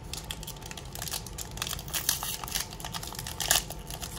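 Foil wrapper of a Pokémon trading-card booster pack crinkling in many irregular small crackles as it is handled and opened by hand.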